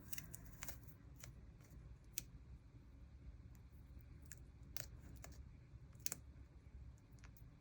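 Faint scattered clicks and light rustles of paper stickers being handled, over a low steady room hum.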